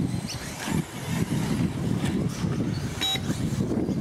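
Radio-controlled short course trucks running on a dirt track, with a steady uneven rumble and a short electronic beep about three seconds in.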